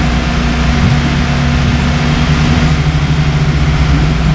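Truck engine sound effect running steadily at idle, low and even, with a steady hiss over it.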